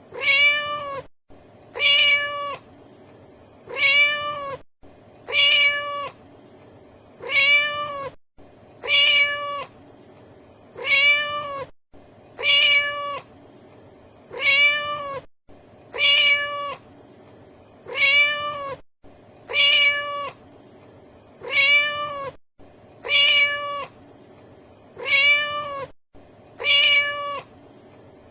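A domestic cat meowing over and over, the same short meow repeated evenly about every second and three-quarters. Each meow rises and falls in pitch.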